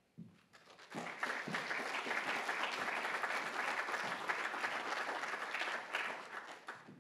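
Audience applause, building about a second in and fading away near the end.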